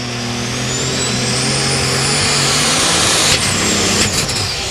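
Alcohol-burning Light Super Stock pulling tractor engine at full throttle under load, getting louder, with a high turbocharger whine climbing in pitch. After about three and a half seconds the whine falls away and a few sharp cracks sound.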